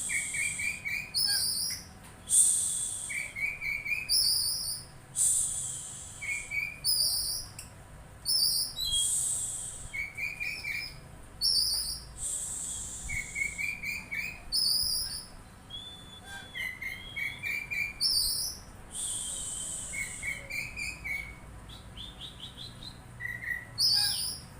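Songbird singing a repeating phrase over and over, about every two to three seconds: a harsh, hissing rasp, quick high chirps and a short lower chirping run.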